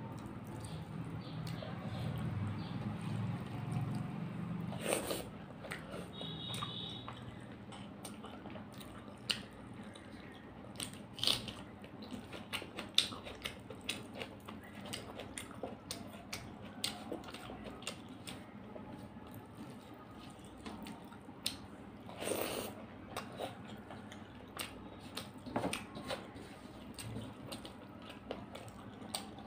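Close-up eating sounds: chewing, smacks and wet squishing as fingers mix rice into chicken curry and lift it to the mouth, with many short scattered clicks. A low rumble sits under the first few seconds.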